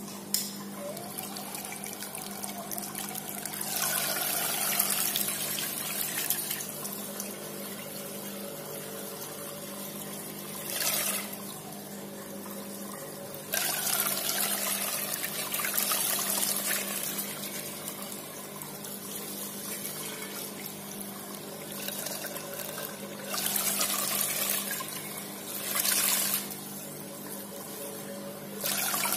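Water from a homemade bell-shaped fountain nozzle splashing onto the pond surface, surging louder several times as the spray changes shape. Under it runs the steady hum of the 775 motor pump.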